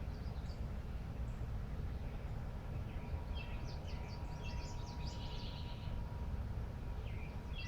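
Small songbirds chirping outdoors in quick clusters of short high notes, busiest in the middle, over a steady low rumble.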